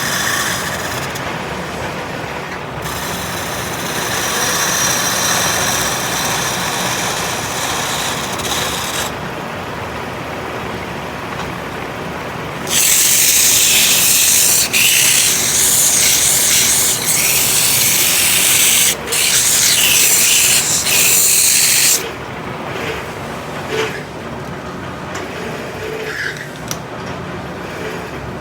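Scraping, grinding noise of a tool working a hard material, growing louder and hissier for about nine seconds midway.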